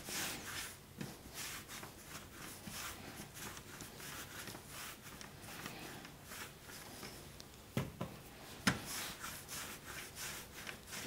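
Hands rolling a strand of yeast dough back and forth on a kitchen countertop: soft, repeated rubbing strokes, with two short knocks a little under a second apart about eight seconds in.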